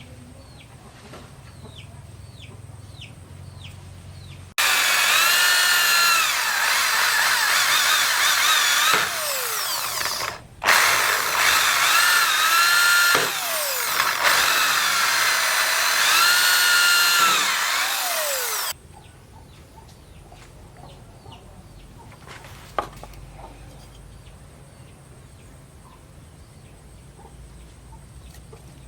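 A handheld power tool working on the steel knife blank. It starts abruptly about four seconds in and stops abruptly around nineteen seconds, with a brief break near the middle. Its whine repeatedly dips in pitch and recovers as the load comes on and off.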